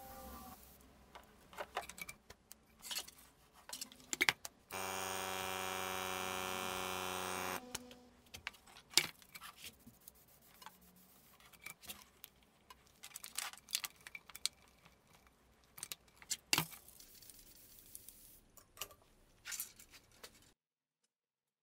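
Small piston airbrush compressor running steadily for about three seconds and then stopping, about five seconds in. Before and after it, scattered clicks and taps of an airbrush, hose and plastic fittings being handled.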